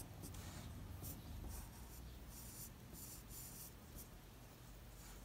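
Faint scratching of a graphite pencil sketching on paper, a run of short strokes with brief pauses between them.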